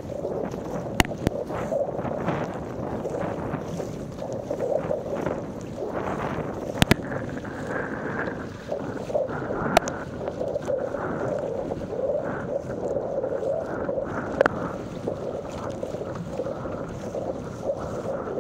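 Sea water rushing and splashing along a surfski's hull as it is paddled, with wind on the microphone. A handful of sharp clicks stand out over the steady rush.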